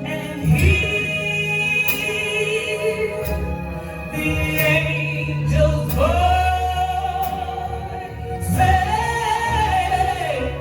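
Live singing with accompaniment: a voice holds long, sustained notes with vibrato, swooping up into a higher held note about six seconds in.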